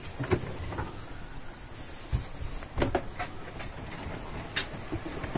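Scattered sharp knocks and clicks over a low rumble aboard a sailing yacht under way: one near the start, a quick pair about three seconds in and another a little later.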